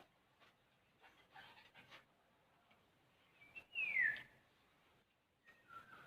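Soft clicks of eating, utensils and chewing, then about four seconds in a short high whine that falls in pitch, followed near the end by a shorter, lower one.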